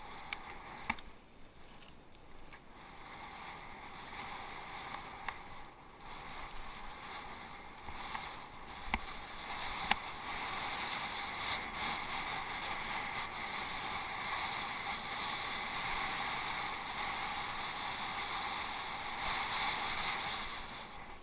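Bicycle being ridden over rough off-road ground, heard through a head-mounted action camera: a steady rolling hiss of tyres and frame that grows louder about halfway through. A few sharp clicks or knocks from bumps come near the start and again about nine seconds in.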